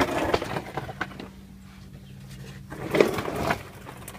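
Two bouts of scraping, rustling and knocking from hands and gear being handled under a car, the second the loudest, over a steady low hum.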